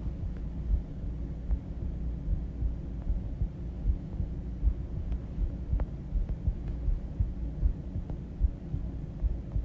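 A human heartbeat recorded close up: repeated low beats over a steady low rumble.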